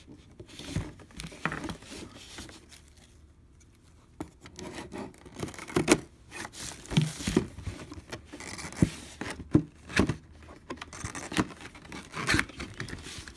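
Cardboard box being handled and worked open by hand: scraping and rustling on the cardboard, broken by many sharp knocks and clicks from about four seconds in.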